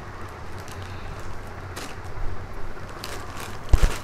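Cloth rustling as a kurti is picked up and shaken out, with a few short brushing swishes and a dull thump near the end.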